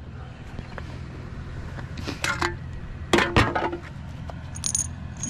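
Scrap metal pieces clanking and rattling against each other as they are pulled from a junk pile. There are two bursts of clatter, about two and three seconds in; the second leaves a short metallic ring. A few light clinks come near the end.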